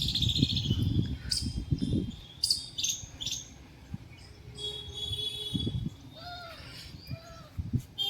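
Several birds chirping, with short, high, repeated calls throughout. Low rumbling noise is heard in the first couple of seconds, and two lower, arched calls come in the second half.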